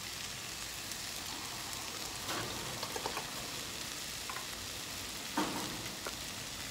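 Diced potatoes and tuna with tomato and chiles sizzling steadily in oil in a nonstick frying pan. A few light knocks break in, the loudest about five seconds in.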